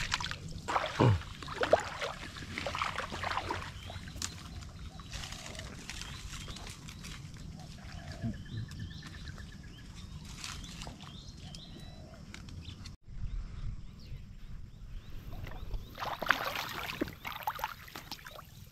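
Splashing and swishing of shallow floodwater and wet grass and brush as someone wades and pushes through it. It is busiest in the first few seconds and again near the end.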